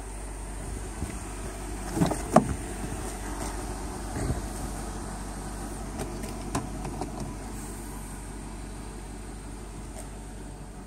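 2004 Mercedes-Benz E500 4Matic's V8 idling steadily as a low hum. A few short knocks or clicks come over it, the loudest pair about two seconds in.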